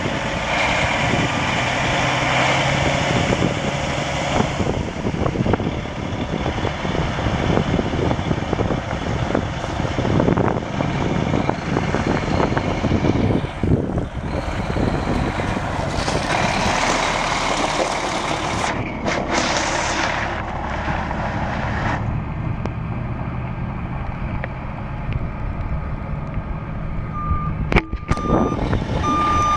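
Caterpillar C13 straight-six diesel of a 2007 Freightliner Columbia semi tractor running as the truck is driven. Near the end a back-up alarm starts beeping at an even pace.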